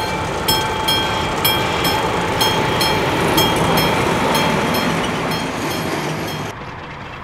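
Vintage Škoda railcar M 274.004 "Modrý šíp" and its trailer car running past: wheels clicking over the rail joints about twice a second, each click ringing, over a steady running noise. Near the end the sound drops suddenly to a much quieter background.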